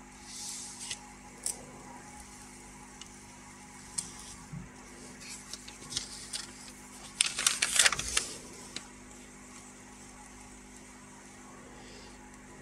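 Handling noise: scattered light clicks and taps, with a short burst of rustling and clatter about seven seconds in, over a steady faint hum.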